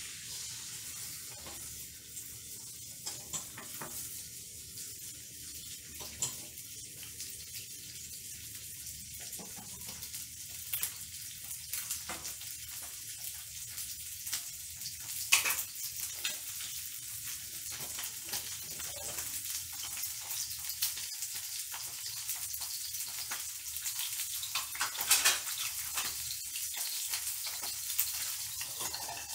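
Marinated deboned chicken thigh frying in a pan: a steady sizzle with scattered crackles and pops, two of them sharper than the rest.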